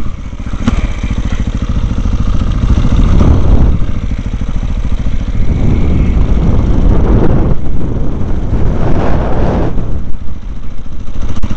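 KTM enduro motorcycle engine running under way across grass, heard from the rider's helmet camera, swelling and easing with the throttle.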